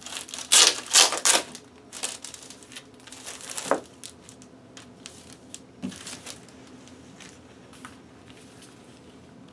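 Clear plastic record sleeve crinkling and a cardboard LP jacket rustling as the album is slid out and handled. The rustles are loudest in the first second and a half, smaller until about four seconds in, then only faint handling.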